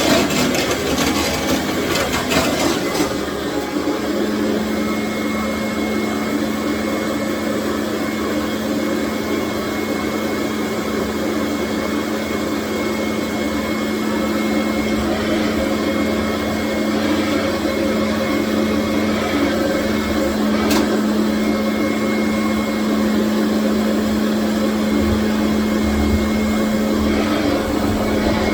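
Commercial vacuum cleaner running steadily on a tile floor: a continuous rushing noise with a steady low hum and a thin high whine. There is clicking and rattling in the first few seconds, and the hum settles to a steady pitch about four seconds in. A single click comes about three-quarters of the way through.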